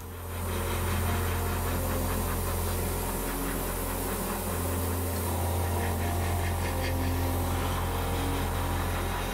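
Airbrush spraying paint with a steady hiss of air, over the steady low hum of its air compressor. It starts about a third of a second in and holds even.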